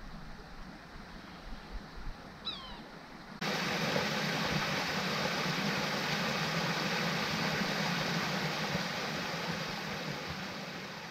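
A small waterfall trickling down a sandy bank, a steady rushing splash that starts suddenly about three and a half seconds in and fades near the end. Before it, one short bird call.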